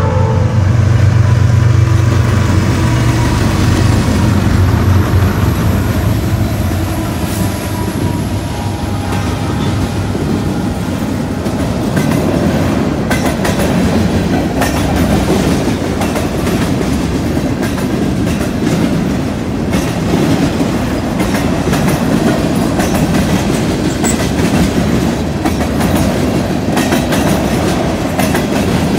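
Freight train passing close by: the diesel locomotives' engines rumble past in the first few seconds, then a long line of freight cars rolls by with steady wheel noise and repeated clicking and clattering of wheels on the rails.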